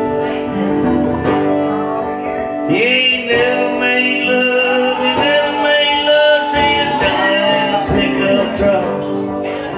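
Live country jug-band music: acoustic guitar, banjo and dobro playing together over a washtub bass. From about three seconds in, a sliding, wavering melody line rides over the steady chords.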